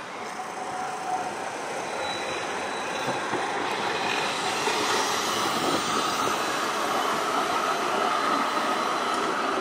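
Two low-floor trams passing each other close by, their running noise on the rails growing louder as they draw near. A steady high tone rises over the noise from about halfway through.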